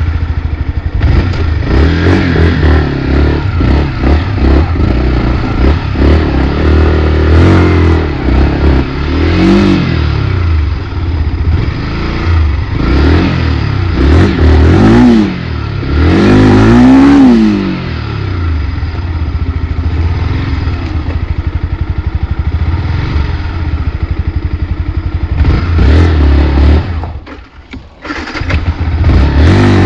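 Yamaha WR155R's single-cylinder four-stroke engine running and being revved repeatedly, its pitch rising and falling. Near the end the sound drops away briefly, then the engine picks up again.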